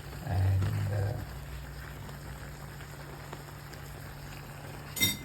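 Chicken and vegetable stir fry sizzling and bubbling steadily in the pan as its cornstarch-thickened sauce cooks, with one sharp click near the end.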